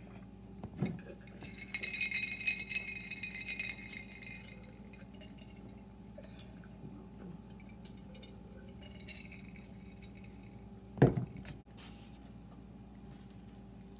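Glass drinking jars clinking and rattling as they are tipped and drunk from, with a cluster of ringing clinks in the first few seconds. A single loud thump near the end.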